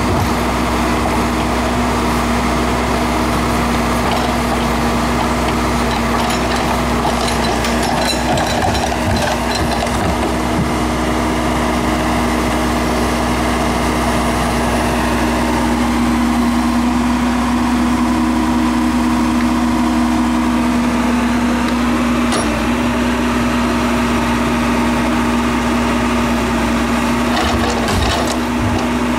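Case 580L Turbo backhoe's turbo diesel engine running steadily at a constant pitch while digging, with a few scattered knocks about a third of the way in and again near the end.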